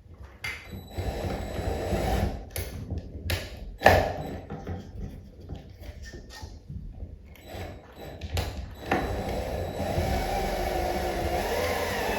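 Clicks and knocks of metal parts being handled on a recessed-light can, the loudest about four seconds in. Then, from about nine seconds in, a cordless drill/driver runs steadily with its pitch wavering, driving the self-tapping ground screw into the can.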